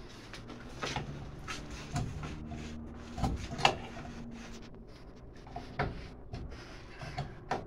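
Scattered knocks and clunks around a closet in a small room, the loudest a little over three and a half seconds in.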